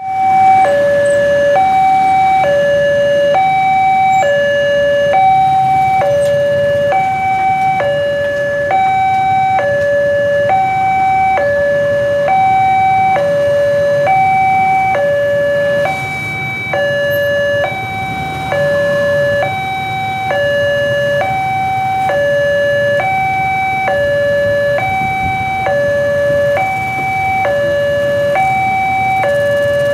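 Railway level-crossing warning alarm: an electronic two-tone signal alternating steadily between a low note and a higher note, sounding while the crossing is closed for a train. Faint road traffic noise underneath.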